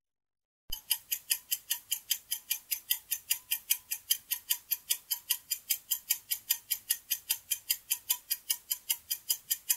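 Countdown-timer sound effect: a clock ticking quickly and evenly, about four ticks a second, starting after a short silence.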